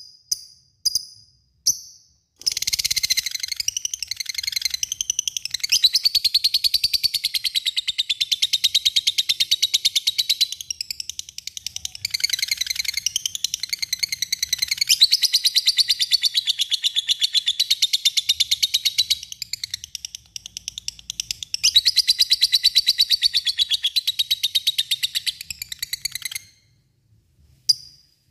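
A lovebird gives a long, very fast, high-pitched chattering trill, the prolonged 'ngekek panjang' song. A few short sharp chirps come before it. The trill runs for over twenty seconds with only brief dips, then stops abruptly near the end, and a couple of single chirps follow.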